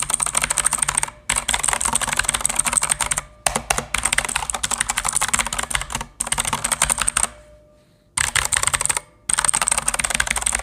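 Rapid typing on a Redragon Aryaman K569 mechanical keyboard with blue switches: quite clicky keystrokes in fast runs, broken by short pauses and one longer pause about three quarters of the way through.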